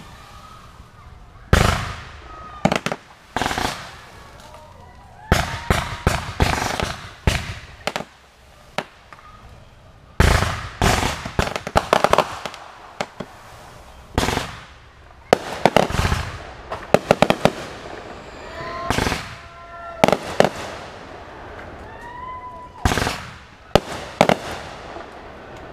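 Aerial fireworks display: bursting shells going off in rapid clusters of sharp bangs, with crackling between them.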